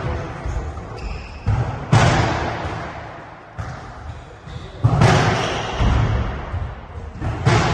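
A football being kicked and slamming against the walls of a squash court during a rally: a few hard thuds, each followed by a long echoing decay in the court.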